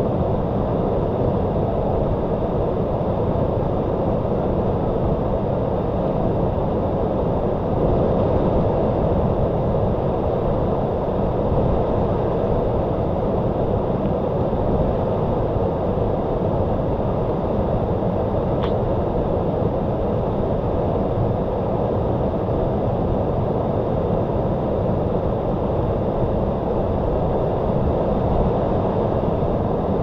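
Waterfall: a steady, deep rush of falling water that does not change in level.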